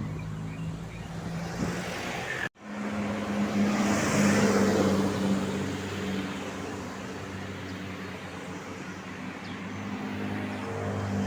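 A large diesel bus engine drones steadily by the roadside. After an abrupt break a few seconds in, a vehicle passes close by with a rush of road noise that swells and eases off, the engine drone running on underneath.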